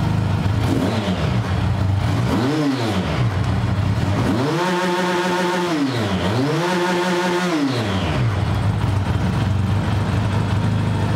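400cc four-valve overhead-cam engine of a Kawasaki Z1000 replica motorcycle idling through its stock dual exhaust. The throttle is blipped three times, each rev falling back to idle: a short rev about two and a half seconds in, then two longer, higher revs around five and seven seconds.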